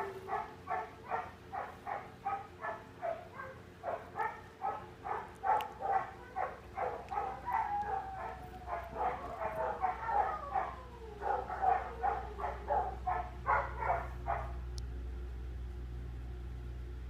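A dog barking over and over, about two to three barks a second, with a long sound falling in pitch midway through. The barking stops about 15 seconds in, leaving a low steady hum.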